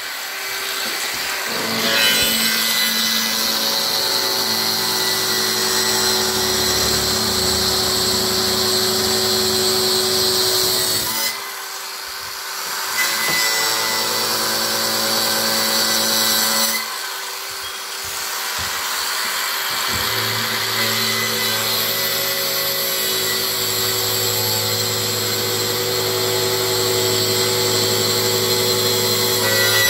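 Makita grinder with a wood-cutting disc running and cutting into wood, routing out recesses for bar brackets. It runs steadily, stops briefly twice, about a third and about two thirds of the way through, and starts cutting again each time.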